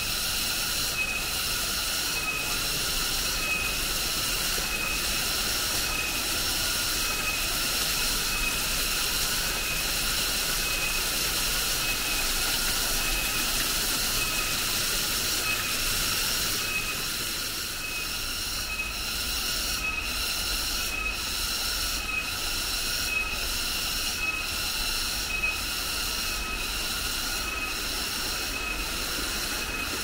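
Insect chorus: a steady, high-pitched drone over a hiss, pulsing evenly about twice a second.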